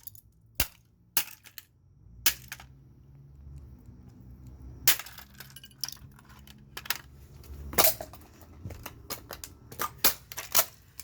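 Irregular sharp knocks and clattering as a plastic alarm clock's insides are struck and broken apart. The blows come every second or so, with scraping and rattling of loose parts between them.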